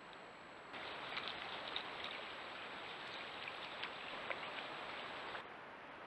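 Trail-camera recording of a steady hiss with scattered faint ticks. The hiss gets louder under a second in and falls back shortly before the end.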